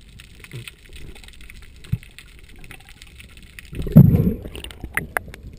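Muffled water sound picked up through an underwater camera housing: faint crackling, then a loud, low rush of water about four seconds in, followed by a few sharp clicks.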